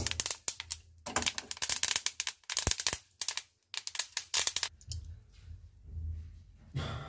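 Flaxseeds popping and crackling as they dry-roast in a hot steel kadhai: a fast, irregular patter of sharp clicks that thins out after about five seconds.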